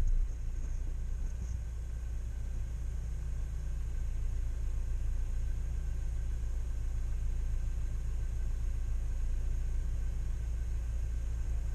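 Car engine idling while it warms up, heard from inside the cabin as a steady low rumble, just after a leaking intake hose was replaced so it no longer draws in air. The owner feels the idle speed is twitching.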